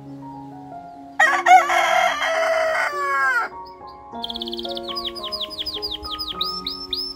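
A rooster crows once, loud and harsh, starting about a second in and lasting about two seconds before its pitch drops away at the end. Then a caged canary sings a run of quick downward-sweeping chirps, about four or five a second, over soft background music.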